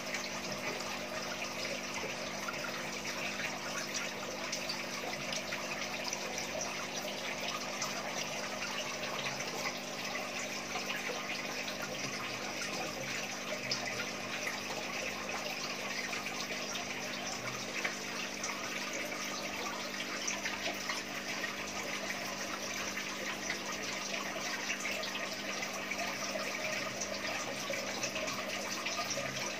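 Steady running and splashing water from aquarium tank circulation pumps, with a low steady hum underneath.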